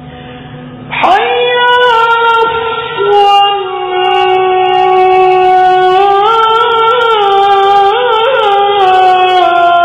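A man chanting the adhan (Islamic call to prayer) into a microphone. After a quiet first second, a loud phrase starts and is drawn out on long held notes, which turn into wavering, ornamented runs in the second half.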